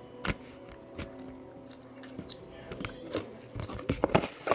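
Slime being squeezed and played with by hand, giving scattered wet clicks and pops that come thicker toward the end.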